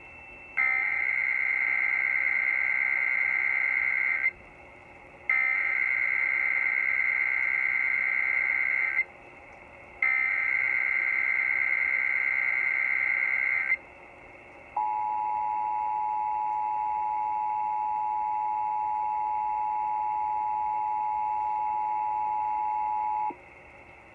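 Emergency Alert System header: three bursts of SAME data tones, a harsh digital warble about four seconds each with short gaps between, followed by the EAS two-tone attention signal, a steady dual tone held for about eight seconds. It opens an EAS required monthly test.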